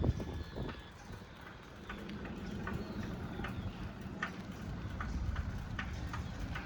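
Bicycle being ridden: a steady low rumble of wind and road with light, regular clicks a little more than once a second.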